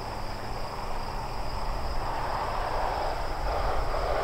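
Outdoor field ambience: a steady high insect drone over a low rumble, with a broad rushing noise that grows louder toward the end.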